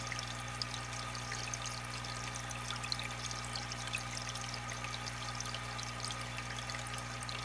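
Aquarium water trickling and bubbling continuously, with many small splashes, over a steady low hum.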